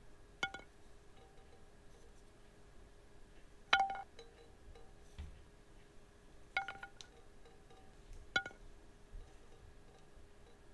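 A wooden spoon knocks against a nonstick frying pan four times at uneven intervals, each knock making a short metallic ring. A faint steady hum runs underneath.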